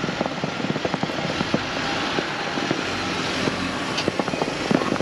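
Jeep engine running as the Jeep creeps slowly forward over snowy ground toward a traction board, with many small crackles from the tyres.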